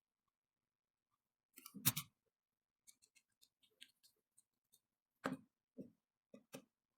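Spinning reel parts and small tools clicking and knocking as they are handled and set down on a work surface: a cluster of louder knocks about two seconds in, a run of light ticks, then four more knocks near the end.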